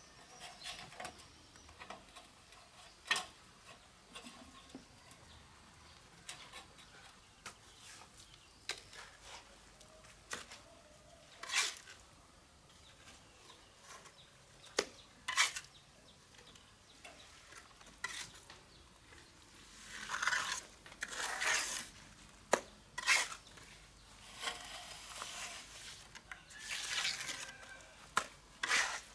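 Masonry trowel work on cement and bricks: scattered sharp metallic clinks and taps, with longer scraping strokes about two-thirds of the way through and again near the end.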